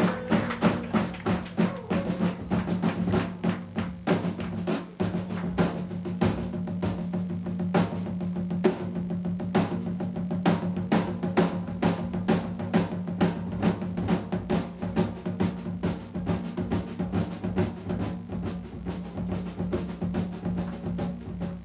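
Jazz drum kit played with sticks: a dense run of strokes on snare, toms and cymbals, over a steady low tone.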